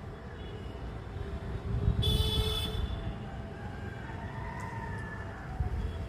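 Steady low rumble of road traffic, with a short, loud horn blast about two seconds in and faint rising-and-falling tones afterwards.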